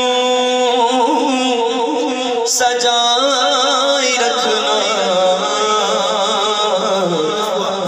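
Man singing a naat, Urdu devotional praise of the Prophet, into a microphone, drawing out long held notes with a wavering vibrato.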